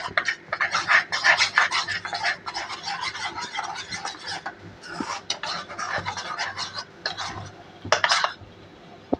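Metal spoon stirring cornflour into milk in a small ceramic bowl, scraping and clinking quickly against the bowl; the stirring stops shortly before the end.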